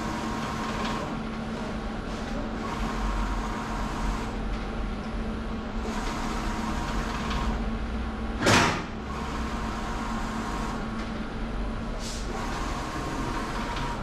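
Large-format inkjet printer running: the print-head carriage whirring back and forth across the banner in passes every two to three seconds over a steady machine hum. About eight and a half seconds in, a short loud rushing noise stands out above it.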